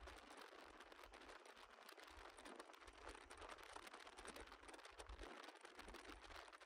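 Near silence: a faint rumble and crackle of wind on the microphone, with a light hiss, as the bass boat runs across the lake.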